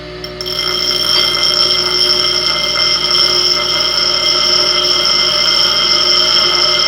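A high-speed power cutting tool running with a steady high-pitched whine, getting louder about half a second in as it bites into a stuck, rounded-off bolt head to cut it into a flat tab.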